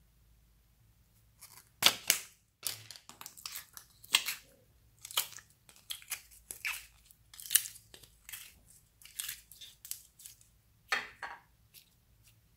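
Clear glitter slime squeezed out of a soft plastic heart-shaped container by hand: a run of irregular crackles and squelches as the plastic flexes and the slime pushes out. The sounds begin about a second and a half in, are loudest about two seconds in, and stop shortly before the end.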